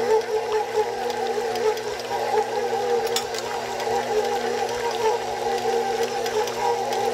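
KitchenAid Professional 600 stand mixer running at a steady speed with an even motor whine, its beater churning a thick mixture of smoked fish and cream cheese in the steel bowl.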